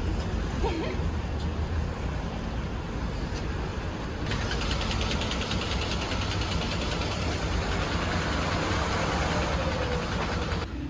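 Street traffic noise: a steady low rumble and hiss of vehicles on the road, growing denser about four seconds in.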